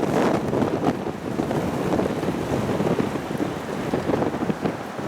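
Wind gusting over the microphone: a dense rush of noise that swells and eases unevenly.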